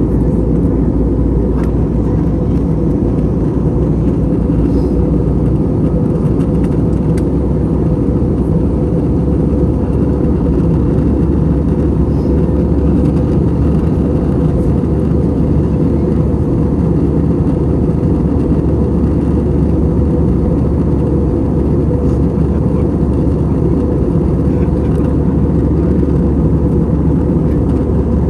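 Steady roar of airflow and IAE V2500 engine drone heard inside the cabin of an Airbus A321 in flight, strongest in the low range and unchanging.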